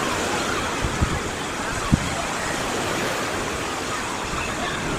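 Surf of the Sea of Azov washing onto the beach in a steady, even hiss of small breaking waves, with a couple of short low thumps about one and two seconds in.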